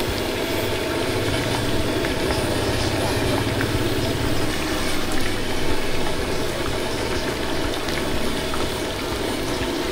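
Battered fritters deep-frying in a large wok of hot oil: a steady bubbling sizzle over a low rumble, which eases about four and a half seconds in.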